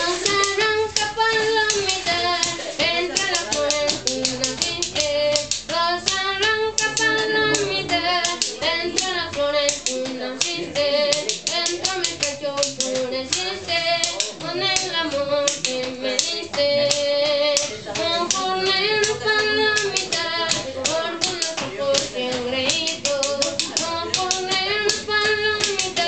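A boy singing a song in Spanish unaccompanied except for his own steady, rapid rhythmic hand-clapping.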